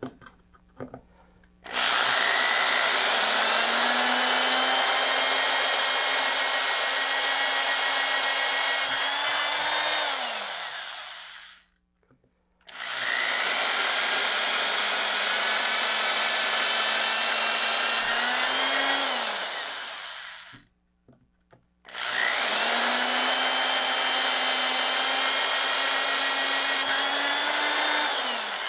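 Corded electric drill boring through a fiberglass rocket tube and its coupler shoulder, in three long runs of about eight to ten seconds each. Each run spins up to a steady whine, holds, then winds down with short pauses between.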